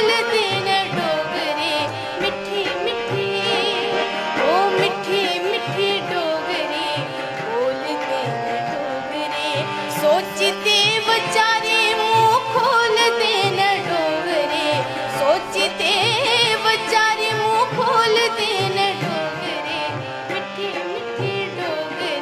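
A woman sings a Dogri folk song to her own harmonium, which holds sustained reedy chords under a melody full of quick ornamental turns.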